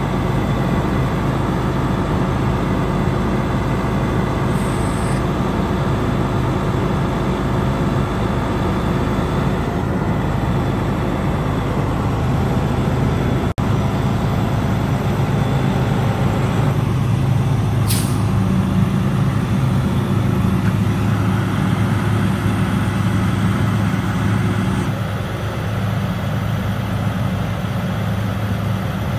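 Detroit Series 60 six-cylinder diesel of a Freightliner Columbia running steadily to power the HIAB knuckleboom crane's hydraulics while the boom extends. It gets louder for a stretch in the second half and eases off a little near the end. A brief sharp noise comes about eighteen seconds in.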